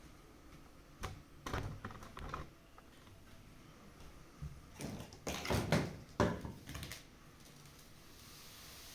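A series of light clicks and knocks, in a cluster about a second in and a denser one around five to seven seconds, over faint room noise.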